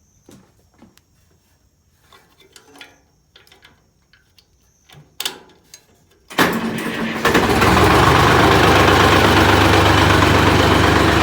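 1960 Clark Michigan 35A tractor shovel's engine starting: after a few faint knocks and a sharp click, it cranks briefly about six and a half seconds in, catches almost at once, and settles into loud steady running.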